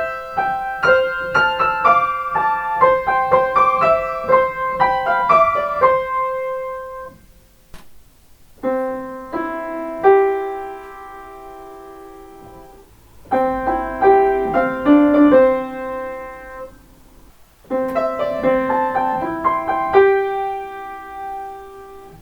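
Solo piano playing short train on-board chime melodies picked out by ear: a quick run of notes that ends on a held note about seven seconds in, then, after a pause, three shorter chordal phrases, each ending on a held note that fades.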